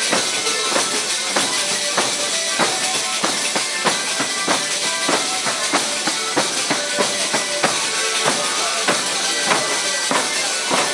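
Live Salento folk dance music: accordion and acoustic guitar playing over a tambourine keeping a steady beat.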